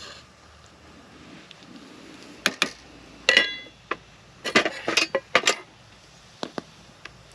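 Cooking utensils and containers clinking and knocking against metal cookware: two sharp clinks, one with a brief metallic ring, then a quick run of knocks and a few lighter taps near the end.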